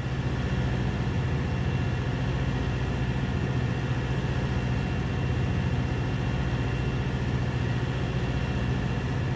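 SPENO rail grinding train at work: a steady, heavy mechanical drone from its engines as its grinding stones run along the rails throwing sparks, with a few steady high tones over the drone.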